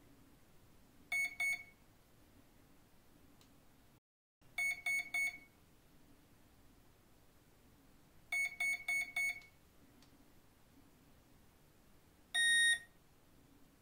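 Flycolor brushless ESC sounding its programming beeps through the boat's brushless motor, stepping through the start mode (punch) levels. It gives two short beeps, then three, then four, and near the end one longer, higher beep, the codes for levels 2, 3, 4 and 5.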